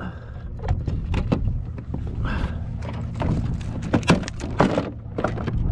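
Irregular knocks, taps and scrapes of a caught redfish and fishing gear being handled on a plastic kayak to measure the fish, over a low steady rumble.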